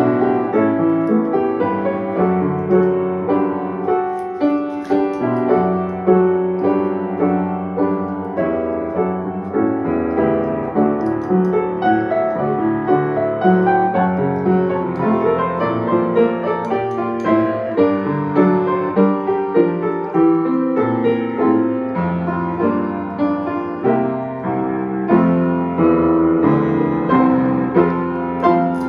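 Solo piano playing: a continuous flowing passage of many notes, likely a hymn or Christmas arrangement.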